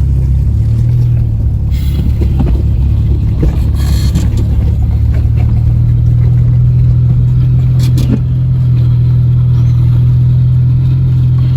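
Car engine running steadily while driving on a dirt road, with a few brief knocks and rattles.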